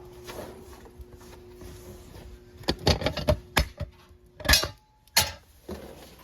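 A run of sharp knocks and clatters, several in quick succession with the loudest about two-thirds of the way in, over a faint steady hum.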